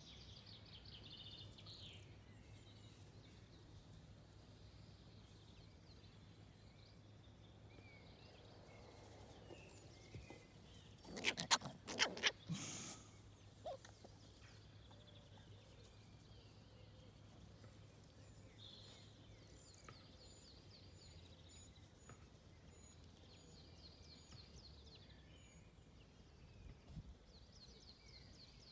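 Wild birds singing in short high trills and chirps on and off, over a faint steady low hum. A brief cluster of loud knocks comes about eleven to twelve seconds in.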